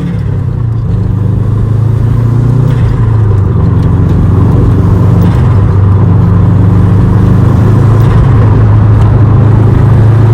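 Subaru WRX's turbocharged flat-four engine running steadily under load, a loud even drone that builds over the first few seconds and then holds.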